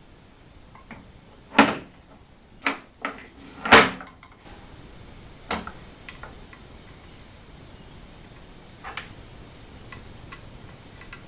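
Aluminium plate and bearing blocks of a CNC router's ball-screw assembly being handled and set down on a workbench: a handful of separate sharp metal knocks and clunks, the loudest about four seconds in, then a few lighter knocks toward the end.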